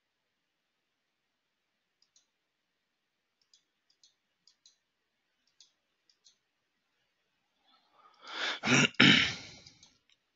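A few faint mouse clicks, then about eight seconds in a man clears his throat, loudly and for a second or two.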